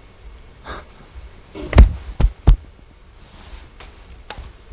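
Three dull thumps in quick succession about two seconds in, with a light click near the end.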